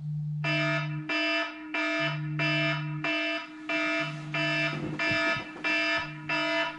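Smartphone wake-up alarm beeping, a steady repeated tone about one and a half times a second. Under it the phone's vibration buzzes against the bed in one-second spells, starting just before the beeps.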